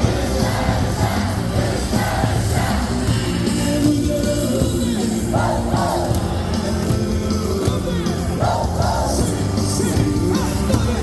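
A large stadium crowd singing a baseball cheer song in unison, with yells, over loud music from the stadium speakers.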